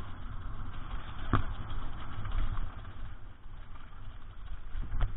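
Mountain bike riding down a dirt trail: steady rumble of wind on the microphone and tyres rolling over the ground, with a sharp knock about a second and a half in and two more near the end.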